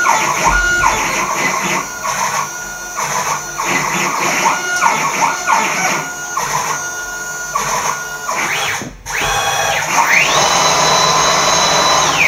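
Axis drive motors of a homemade CNC router moving the gantry: a whine that rises in pitch as each move speeds up, holds, and falls as it slows, repeated over many short moves. Near the end a longer, higher whine holds for about two seconds during a rapid G0 return to home.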